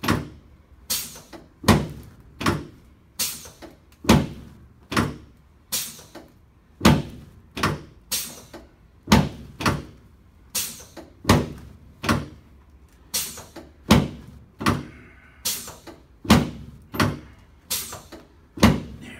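Chiropractic adjusting equipment knocking sharply and rhythmically, about once every three-quarters of a second, during an adjustment of a face-down patient's sacroiliac (SI) joints. There is a short break about fifteen seconds in.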